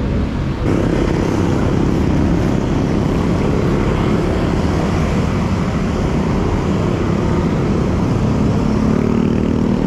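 Wind buffeting a GoPro's microphone during a bike ride: a loud, steady rumble that gets louder about a second in.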